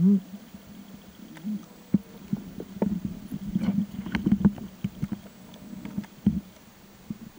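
Muffled underwater noise from a camera held under water by a swimming snorkeler: a low hum broken by irregular knocks, clicks and thumps from movement in the water, the loudest a thump at the very start.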